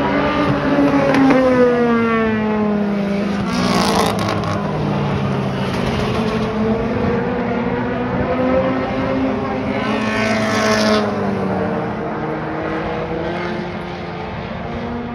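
Race cars running laps on an oval track: one passes close with its engine note falling away in the first few seconds, and further cars go by with louder surges about four seconds and about ten seconds in, over the steady drone of the rest of the field.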